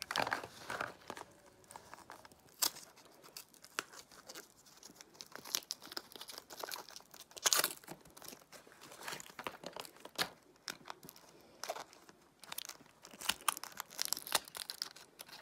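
Toybox surprise packets' plastic wrappers being torn open and crumpled by hand: irregular bursts of crinkling and sharp crackles.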